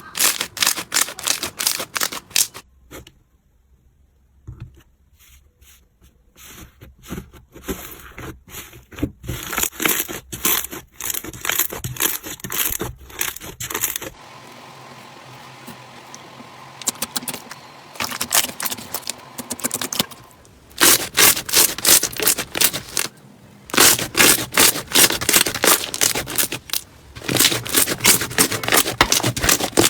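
Crunchy slime being worked by hand: dense trains of sharp crackling and popping clicks, with a quieter stretch of soft hiss about halfway through before the crackling starts again.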